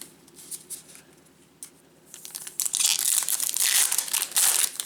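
A 2017 Bowman baseball card pack's wrapper being torn open and crinkled by hand: a few light ticks, then from about two seconds in a dense crackle of crumpling wrapper.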